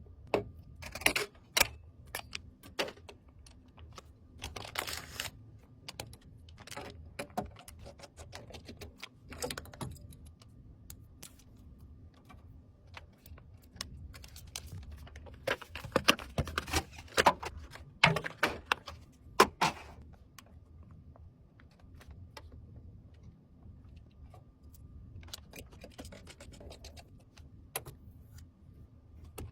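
Hands handling PC components during a build: irregular clicks, taps and rustles. They come in clusters, with the busiest run of quick clicks from about 16 to 20 seconds in, over a faint steady hum.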